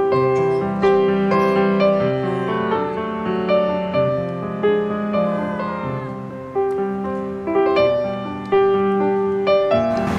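Background piano music: a slow melody of single notes struck about once a second, each left to ring and fade.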